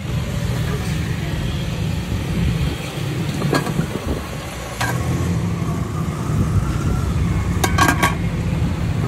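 Steady low rumble of street traffic, with a few light metallic clinks of aluminium pot lids being handled, several in quick succession near the end.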